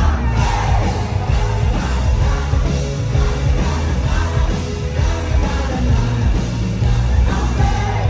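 Music with a singing voice over a heavy, steady bass.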